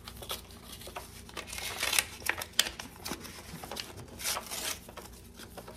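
Paper and plastic rustling and crinkling, with small taps and clicks, as mail is handled and a card is drawn out. The rustling comes in louder bursts about two seconds in and again about four seconds in.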